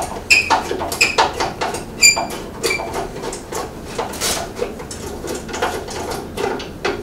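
A screwdriver loosening the screw that holds a bench band saw's lower cover door, squeaking with each turn: a run of short high squeaks about twice a second, giving way after about three seconds to fainter clicks and scrapes.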